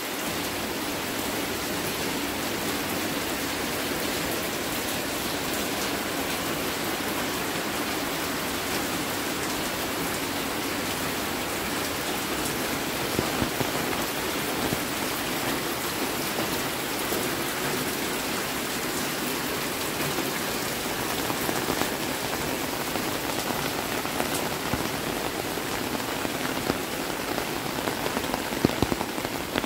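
Steady rain falling on a wet paved alley, with a few sharper drips in the second half.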